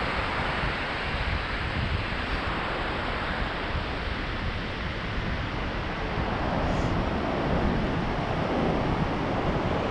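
Ocean surf washing in on a flat sandy beach, with wind buffeting the microphone in a steady rumble.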